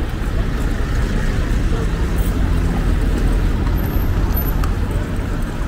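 City street ambience: a steady rumble of road traffic, with voices of people in the street mixed in.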